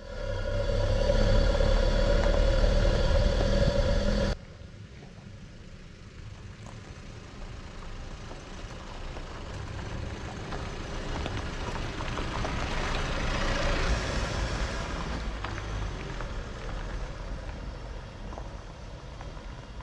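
A vehicle's engine running at a steady pitch, cut off abruptly about four seconds in. After that comes a quieter rumble and rushing of a vehicle, which swells to a peak in the middle and then fades.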